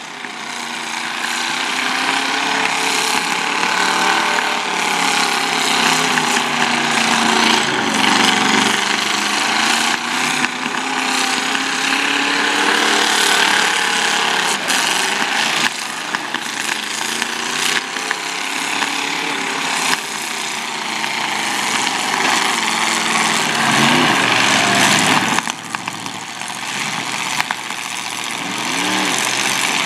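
Several demolition derby cars' engines running hard and revving, their pitch rising and falling, with a few sharp bangs as the cars hit each other.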